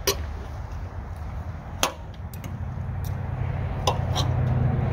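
Knife and fork clicking against plates as steak is cut: a few sharp clicks a second or two apart, over a low rumble that grows louder in the second half.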